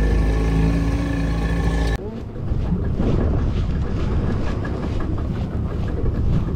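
Music with sustained tones that cuts off abruptly about two seconds in, giving way to wind buffeting the microphone over the steady running of a small fishing boat's motor on the sea.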